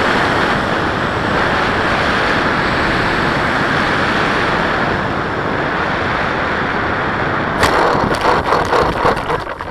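Steady rush of airflow over the onboard camera of a radio-controlled model plane gliding in to land. About seven and a half seconds in, a run of sharp knocks and rattles as it touches down and rolls over the grass, dying away at the end.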